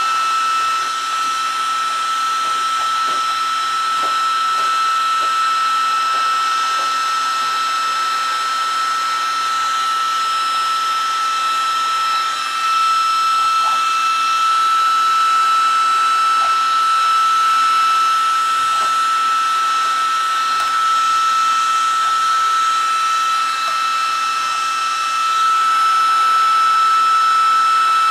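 Wagner electric heat gun blowing steadily, a constant fan hiss with a high whine, while it heats paint to soften it for stripping. A few faint scrapes come from a thin putty knife lifting the softened paint off the sheet metal.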